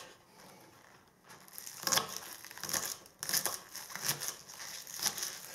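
Kitchen knife slicing green onions on a wooden cutting board: irregular crisp crunches and taps, starting about a second in.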